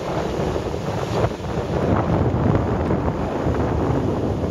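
Wind buffeting the microphone in a steady rush, over the running engine and spray of a Sea-Doo 3D jet ski carving turns at speed on choppy water.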